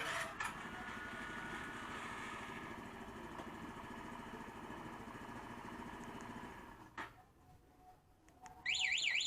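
A motorcycle engine runs faintly and fades out about six and a half seconds in, followed by a sharp click. Near the end the newly installed motorcycle anti-theft alarm siren starts loud, a fast warbling tone sweeping up and down several times a second.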